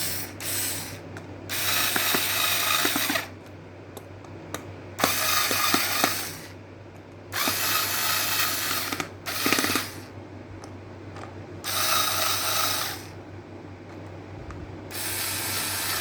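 Screws being driven back in with a screwdriver to fasten the kettle base cover, in about six spells of a second or two each with short pauses between.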